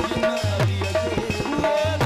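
Instrumental folk music: a harmonium plays held melody notes over a hand drum's deep bass strokes, which slide down in pitch, and its sharp slaps.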